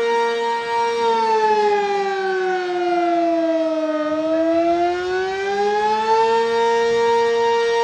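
Sentry 20V2T dual-tone outdoor warning siren sounding a loud, steady chord. About a second in its pitch slides down for about three seconds, then climbs back up to the steady chord by about six seconds in.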